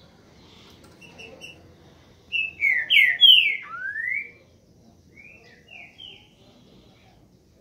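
Green-winged saltator (trinca-ferro) singing its boiadeiro song: a loud phrase of several falling slurred whistles ending in one longer rising whistle, then a softer phrase of three short notes about two seconds later.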